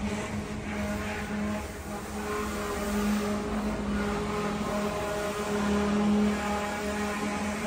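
A machine running steadily, a constant low hum with a few overtones over a light hiss.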